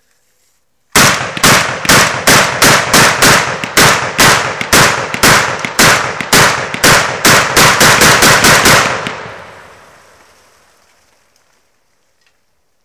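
A rifle fired rapidly, about twenty shots in eight seconds at an uneven pace of roughly three a second. The echo then fades out over a few seconds.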